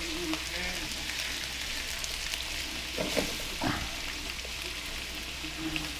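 Pepper vegetables sizzling steadily in a frying pan, with two short knocks a little after three seconds in.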